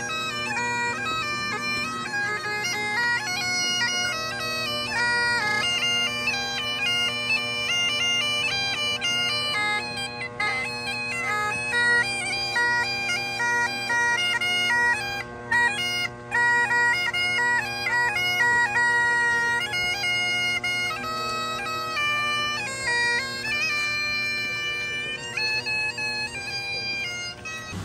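Highland bagpipes playing a tune, the chanter's melody moving in quick stepped notes over steady drones.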